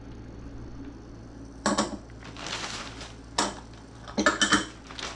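Plastic zip-top bag crinkling in a few short bursts as it is handled, with a light clink of a small glass dish on a wooden table near the end.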